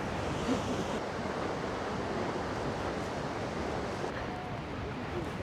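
Steady rushing noise of the Seljalandsfoss waterfall pouring down.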